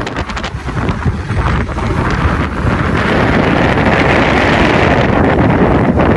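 Wind buffeting the microphone as a steady rushing noise that grows louder about halfway through.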